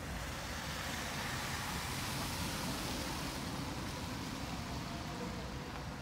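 A car driving past on the wet, snow-covered street, its tyre noise and engine rumble swelling and then easing off slightly.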